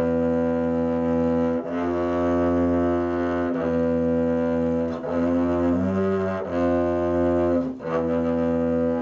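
Music: a low bowed string instrument playing a slow line of long held notes, each lasting a second or two.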